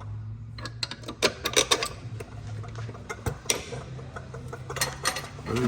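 Small metal hardware clinking and clicking irregularly as the washers, spacer and bolts of a slip-on exhaust are handled and fitted into place, over a steady low hum.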